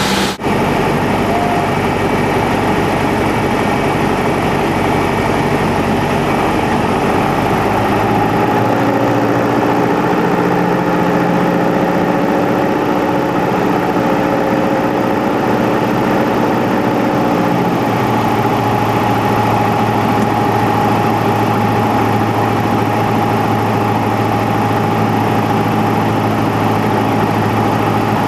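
Steady airliner cockpit noise on final approach: engine hum and airflow, with several steady tones. There is a very brief dropout just after the start. The engine tones shift in pitch about 8 seconds in and again about 18 seconds in.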